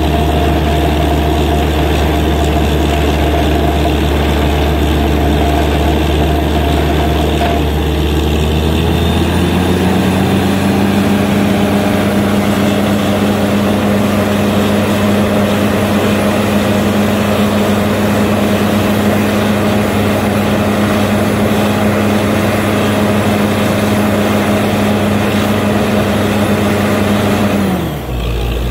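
Borewell drilling rig running steadily under load as the drill rod turns in the bore, a loud heavy engine note. About nine seconds in its pitch rises and holds higher, then drops just before the end.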